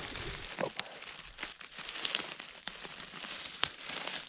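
Rustling and crackling of dry leaves and twigs on the forest floor as someone walks through it, with a scatter of sharp snaps.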